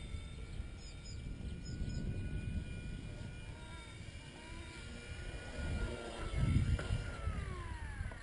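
Blade mCP X micro RC helicopter's electric motor and rotor whining steadily overhead, then falling in pitch over the last second or so as it comes down to land. A few short bird chirps can be heard about a second in.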